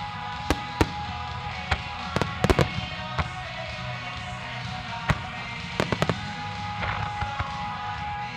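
Aerial firework shells bursting in sharp bangs, about a dozen in all, bunched in a rapid cluster about two to three seconds in and again around six seconds in, over the music that accompanies the display.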